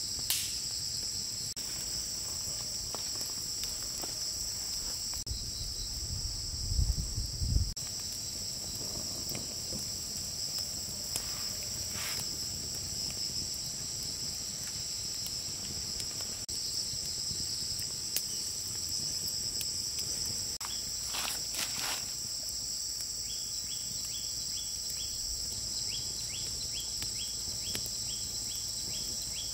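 Steady, high-pitched insect chorus, an even two-tone drone that never stops. Scattered faint clicks, a few low thumps about seven seconds in, and a run of quick small ticks near the end.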